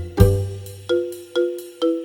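Background music: bright struck, bell-like notes repeating about twice a second over a low bass line.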